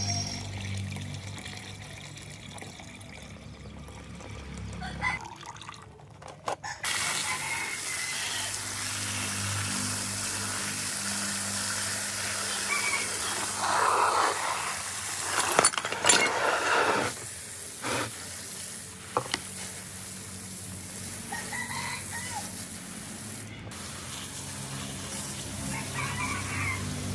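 Water running from a hose and splashing over small metal parts, such as springs, plates and a chain, in a plastic tray as they are rinsed; the running water starts about a quarter of the way in. A few sharp knocks of the parts come through in the middle.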